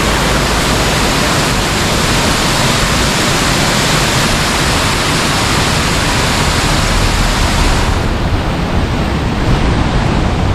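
Loud, steady rush of water tumbling over a stepped stone waterfall. The hiss thins and drops back about eight seconds in.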